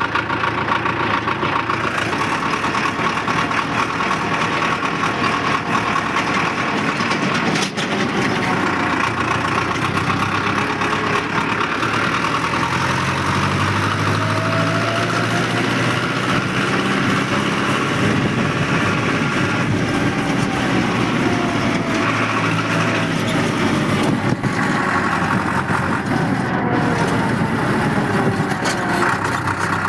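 Powertrac tractor's diesel engine running steadily while driving along a tarmac road, with the engine note climbing for a few seconds partway through.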